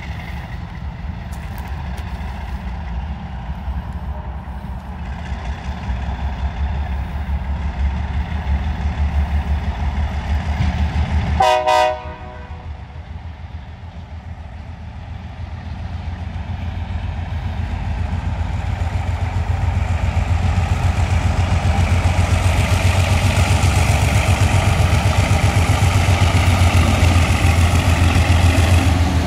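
Diesel locomotive engine rumbling, with one short locomotive horn toot about twelve seconds in. Afterwards the engine sound grows steadily louder.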